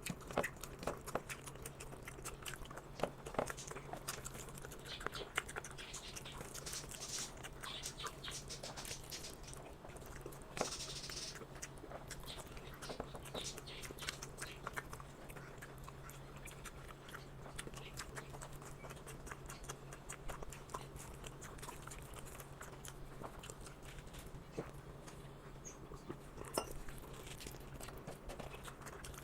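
Close-up chewing and mouth sounds of a person eating rice and chicken curry: irregular wet smacks and small clicks, a few sharper ones near the start, over a steady low hum.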